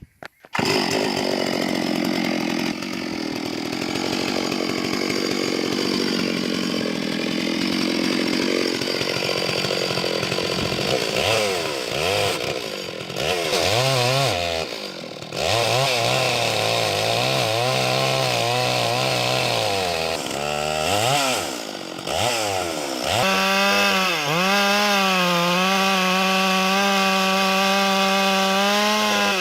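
Two-stroke chainsaw on a board-cutting frame (chainsaw mill) ripping planks from a log. The engine's pitch rises and sags as the load of the cut changes, drops briefly several times midway, then holds a steady high pitch in the last few seconds.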